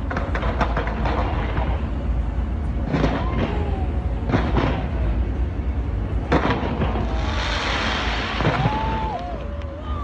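Aerial fireworks exploding one after another: sharp bangs over a constant deep rumble, with a crackling fizz swelling about three quarters of the way through.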